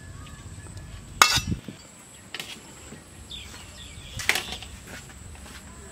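Metal spatula and spoon clinking and scraping against a steel wok and tray, with a sharp clink about a second in, a smaller one after two seconds and another loud one past four seconds.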